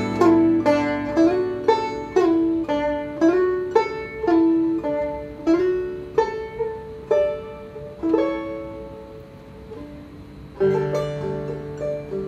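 Resonator banjo and acoustic guitar playing an instrumental duo: a run of plucked single notes, several sliding up into pitch, over the guitar. The playing thins out and quietens past the middle, then comes back fuller and louder near the end.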